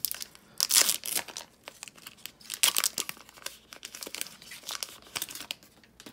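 Foil wrapper of a Yu-Gi-Oh booster pack being torn open by hand, crinkling and tearing in irregular bursts, loudest about a second in and again near the three-second mark.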